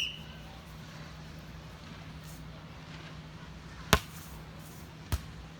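A volleyball struck sharply by hand twice, a little over a second apart: a serve and the hit that answers it. A brief high-pitched squeal sounds at the very start, over a faint steady low hum.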